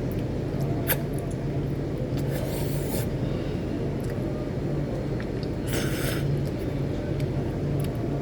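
Person eating spicy cream noodles close to the microphone: a sharp click about a second in and two short hissing eating noises, around two and a half and six seconds in, over a steady low hum.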